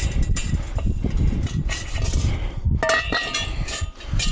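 Scrap metal being picked up and handled, with knocks and, about three seconds in, a clank that rings with a metallic tone, over a low rumble.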